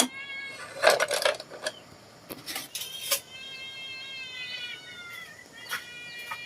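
An animal calling in drawn-out notes, two long calls each held about two seconds and sagging slightly in pitch, over a handful of sharp knocks in the first half.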